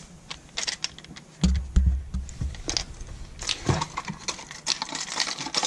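Scattered light clicks and taps from a hard plastic fishing lure and its packaging being handled and set down in a cardboard box, with a few dull low thumps about one and a half to two and a half seconds in.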